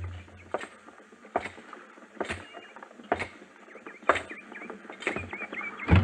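Slow, even footsteps of boots on wooden boards, about one step a second, a radio drama sound effect. Birds chirp in the background from about five seconds in.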